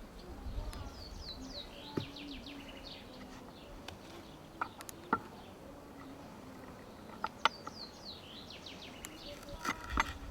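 A songbird singing a phrase of quick, falling chirps, heard twice, over quiet outdoor background. Several short sharp clicks and taps come through it, the loudest a little after seven seconds in.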